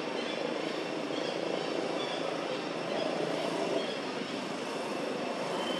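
Steady, even rushing background noise with no clear rhythm, and a few faint short high chirps now and then.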